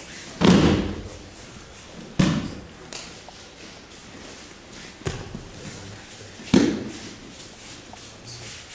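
Thuds and slaps of a body and hands hitting the mat in aikido breakfalls and throws. There are four impacts: a heavy fall just under half a second in, then sharper hits about two, five and six and a half seconds in.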